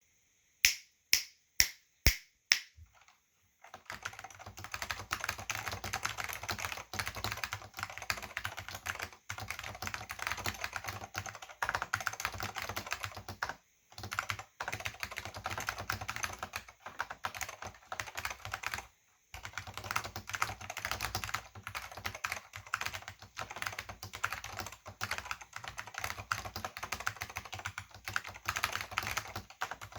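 Silicon Graphics Granite keyboard with orange Alps SKCM switches and thin PBT dye-sub keycaps being typed on. Five separate loud clicks come first, then fast continuous typing with a few brief pauses. The owner finds the sound hollow, with no bass.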